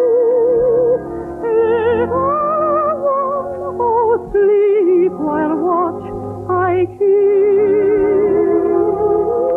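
A soprano singing a slow lullaby with wide vibrato, accompanied by an orchestra.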